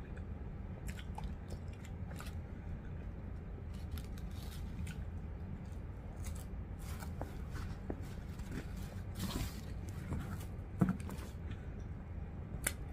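Close-up eating sounds: chewing, small mouth clicks and finger-licking, over a steady low hum. A short rustle of wrapper or plastic comes about nine seconds in.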